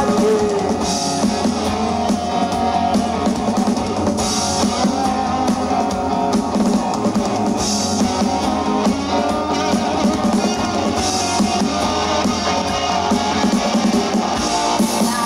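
Rock band playing live in an instrumental passage with no singing: electric guitars over a drum kit. A cymbal crash comes about every three and a half seconds. It is heard from the audience through a camcorder microphone.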